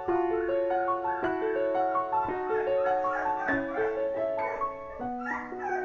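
Background piano music: a gentle run of single notes.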